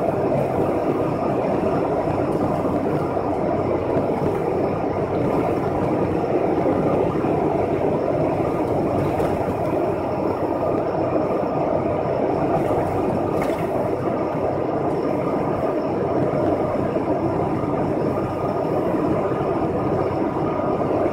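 Steady road and engine noise heard from inside a vehicle's cab while it cruises along a motorway, an even rumble with a faint steady whine above it.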